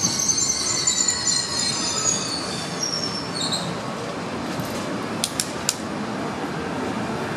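TER regional train rolling slowly along the platform, with high-pitched wheel squeal for the first few seconds that then fades, leaving a steady rumble. Three sharp clicks sound a little after five seconds in.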